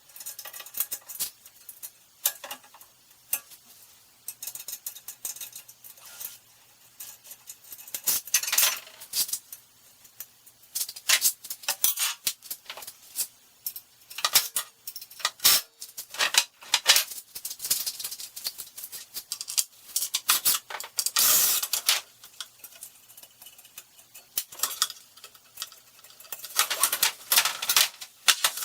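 Irregular clinking and rattling of small metal parts being handled, coming in clusters with short gaps. One longer scraping rush about three-quarters of the way through.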